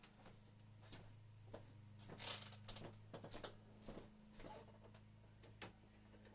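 Faint scattered clicks and brief rustles over a steady low hum, the loudest a short rustle about two seconds in.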